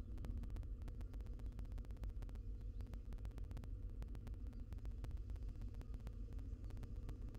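Steady low electrical hum from the nest-box camera's microphone, with a rapid scatter of faint clicks and crackles running through it.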